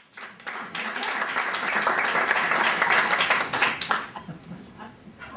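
Audience applauding, swelling over the first second and dying away about four seconds in.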